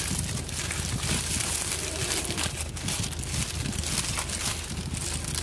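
Paper food wrapper crinkling and rustling as it is unfolded by hand, in irregular, fairly loud bursts of crackle.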